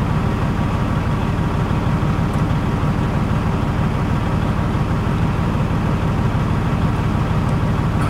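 Heavy diesel semi-truck engine idling, a steady low tone that does not change.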